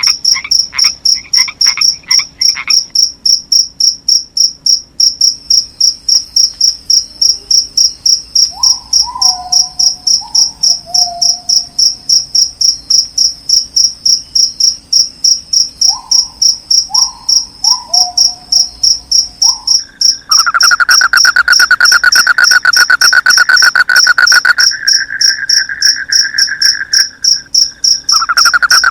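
Night chorus of crickets chirping steadily in a high, evenly pulsed rhythm of a few chirps a second, with a few short falling frog calls in the middle. About twenty seconds in, a louder, faster trill joins.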